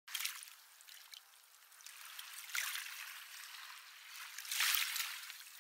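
Small waves washing onto a shore, three washes about two seconds apart. The sound is thin and hissy, with no bass.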